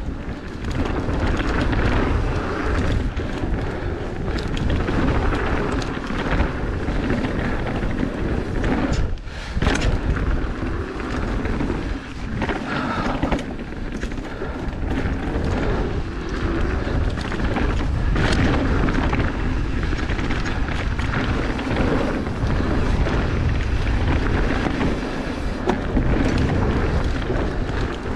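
Wind buffeting the microphone of a camera on a mountain bike descending a wet dirt singletrack, under the rumble of the knobby tyres on the dirt and the bike's rattle, with scattered knocks from bumps.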